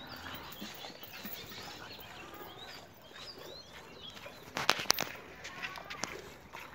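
Small birds chirping on and off, with a quick run of four or five sharp clacks about two-thirds of the way through.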